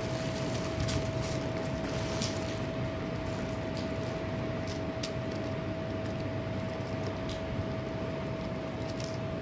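A steady machine hum, such as a fan or air conditioner running, carrying one thin steady whine. A few faint clicks sound over it.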